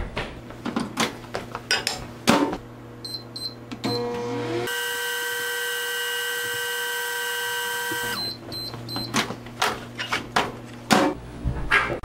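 Microwave oven being loaded and run: clicks and knocks of handling, and a few short high beeps from the keypad about three seconds in. Then the oven runs with a steady hum of several fixed tones for about three seconds and cuts off abruptly, followed by a few more short beeps and further clicks.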